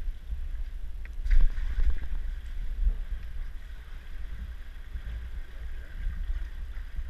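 Steady low rumble with a few knocks about a second in: handling noise of a handheld camera carried while wading through shallow water.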